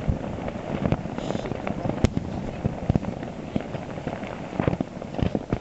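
Tavurvur volcano erupting: a continuous crackling rumble broken by many irregular sharp cracks, the sharpest about two seconds in.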